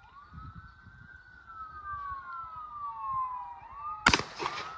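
A single loud gunshot about four seconds in, with a short echo after it, from a gun that kicked noticeably. Behind it, long wailing tones glide slowly up and down.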